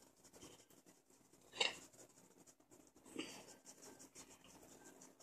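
Faint rattle and patter of a seasoning shaker being shaken over a raw whole chicken, with a brief louder shake about a second and a half in.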